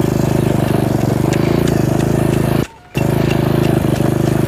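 A small engine running steadily with an even, fast pulse. It cuts out abruptly for a moment a little before the three-second mark, then carries on.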